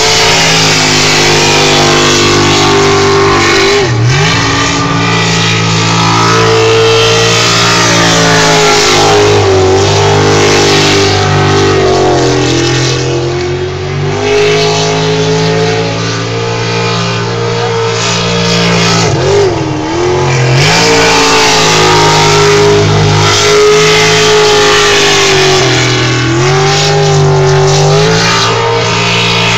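Sprint boat engine racing at high revs, its pitch holding high and dropping briefly about four times as the throttle eases off and comes back on.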